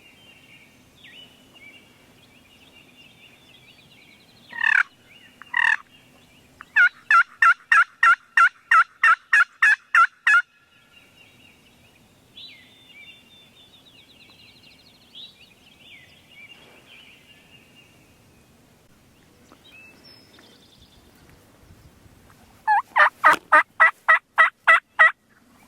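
Turkey yelping: two loud single notes, then a steady run of about a dozen evenly spaced yelps, and near the end another run of about ten. Songbirds sing faintly in between.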